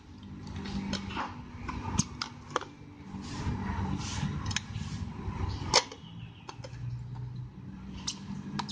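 Plastic lids of children's straw water bottles being twisted off, lifted and fitted onto the other bottle: handling rustle with sharp plastic clicks and knocks, the loudest about two seconds and about six seconds in.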